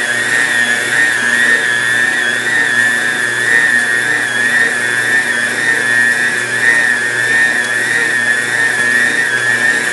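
Electric stand mixer motor running steadily with a high whine and a low hum while its dough hook kneads a heavy batch of whole-wheat bread dough.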